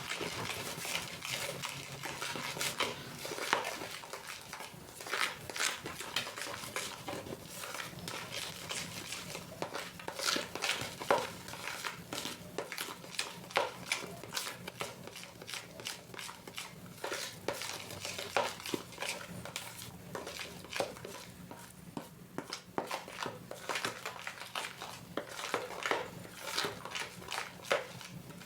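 A utensil scraping and clinking against a mixing bowl as cake batter is stirred, in irregular strokes.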